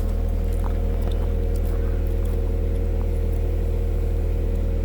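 Komatsu PC120-6 excavator's diesel engine running steadily, a deep even drone that holds constant.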